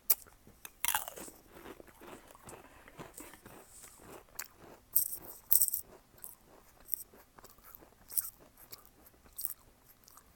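A cat biting and chewing a Pringles potato crisp held out to it by hand: irregular crisp crunches, the loudest a few about five seconds in.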